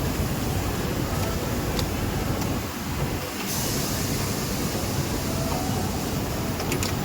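Industrial sewing machines running on a factory floor: a steady mechanical din with a low hum and a few light clicks.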